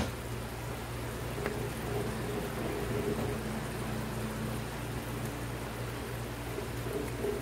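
Cream sauce simmering and bubbling in a nonstick frying pan, a steady soft hiss, with a steady low hum underneath.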